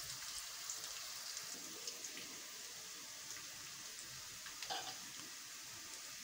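Sliced onions frying in hot oil in a wok: a steady, soft sizzle with scattered small crackles, and one short louder crackle about three-quarters of the way through. The onions are being fried only until they change colour, not to golden brown.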